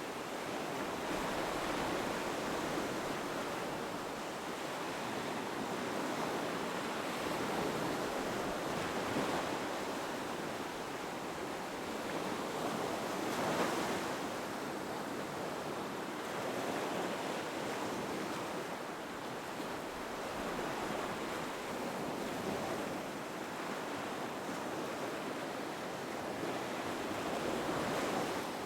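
Ocean surf breaking on a beach: a steady wash of waves that swells and recedes every few seconds, with one louder break about halfway through.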